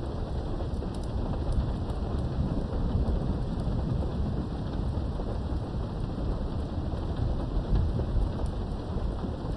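Thunderstorm: steady rain with a deep, continuous rumble of thunder that swells near the end, and faint scattered raindrop ticks.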